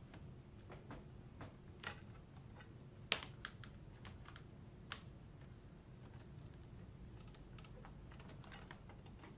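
Faint, scattered small clicks and taps of a small Phillips screwdriver and plastic laptop screen parts being handled as tiny screws are started through the screen frame, the sharpest click about three seconds in.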